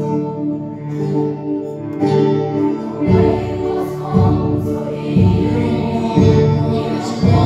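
A mixed choir sings with instrumental accompaniment. From about three seconds in, a low beat joins the music and repeats about once a second.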